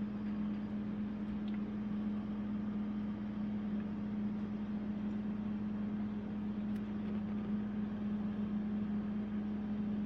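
Refrigerator running with a steady low hum on one tone, even and unchanging throughout.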